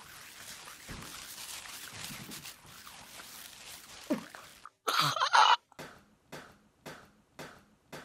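A boy coughs hard for about a second, choking on a mouthful of edible paper-like grass. About a second later, music with a steady beat starts.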